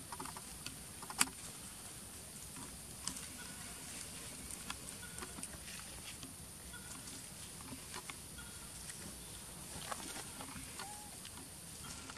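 Dry leaf litter crackling and ticking as monkeys move about on it, with a sharp snap about a second in. A few faint, short, high chirps come through at intervals.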